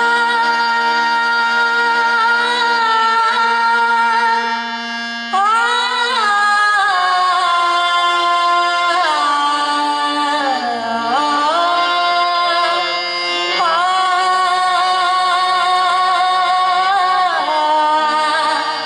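Devotional bhajan music: singing over sustained instrumental accompaniment, the melody holding long notes and gliding between them, before the words of the bhajan begin.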